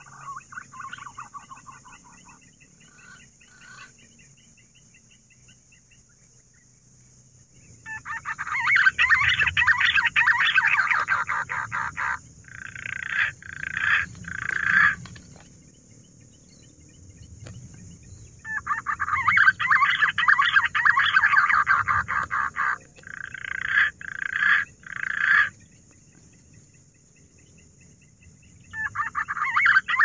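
Green pigeons (punai) calling: long runs of rapid notes, each run followed by a few short bursts, with a new run starting about every ten seconds.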